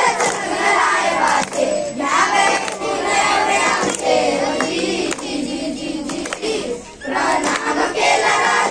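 A group of schoolchildren singing a chant together in unison, clapping along in time. The voices dip briefly about seven seconds in, then come back in.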